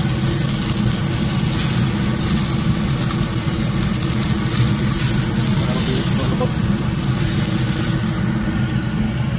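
Kitchen range hood fan running steadily, with a tomahawk steak sizzling as it sears in a hot pan. The sizzle thins out about eight seconds in as the steak is lifted from the pan.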